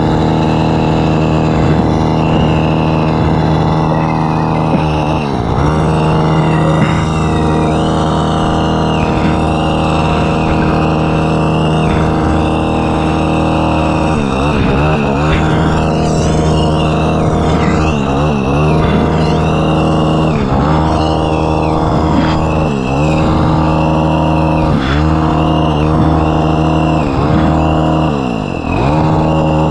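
Small gas engine of a pole trimmer running at high speed while cutting a hedge. Its pitch dips briefly and recovers every second or two as the cutting head bites into the branches.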